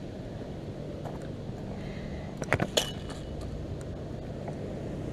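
Steady low outdoor rumble, with a few sharp clicks and knocks of handled fishing gear about two and a half seconds in.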